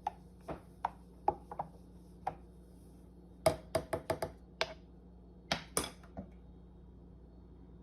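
A string of light, sharp clicks and taps at irregular intervals, with a few quick clusters, over a faint steady hum.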